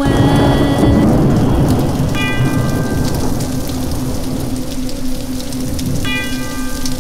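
Rain falling steadily, with a low rumble of thunder in the first second or two, over a sustained low musical drone. A bell-like chime strikes twice, about two seconds in and again about six seconds in, each ringing on.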